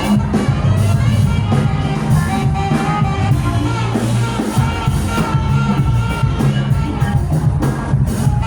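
Live band playing: a moving bass line under a drum kit, with held melodic notes above.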